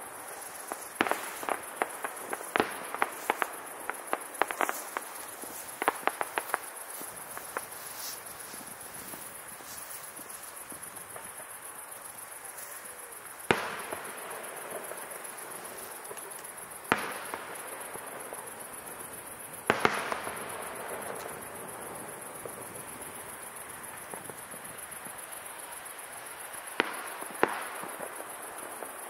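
Fireworks display: a quick run of sharp bangs and crackles in the first several seconds, then single shell bursts a few seconds apart, one of them trailed by crackling.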